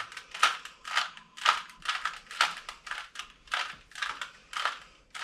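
Plastic 3x3 Rubik's cube being turned by hand: a rapid series of clicks and clacks, about two a second, as its layers are twisted through a repeated move sequence to bring a yellow corner piece into place.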